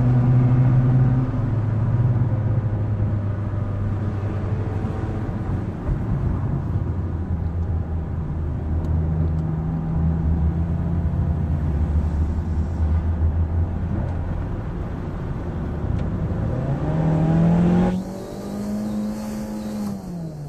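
Car engine and road noise heard from inside a moving car on a winding road, the engine drone rising in pitch as the car accelerates near the end.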